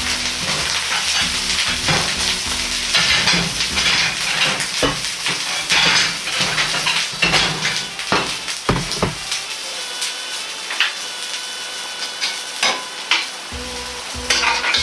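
An empty wok heating over a strong gas flame, sizzling and crackling as leftover water boils off its hot surface, with many sharp pops.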